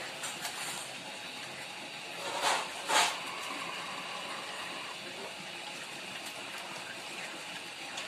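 Water and mud gushing from the top of a pipe being worked up and down for hand-drilling a tube well, with a steady wet hiss. Two louder splashes come about two and a half and three seconds in.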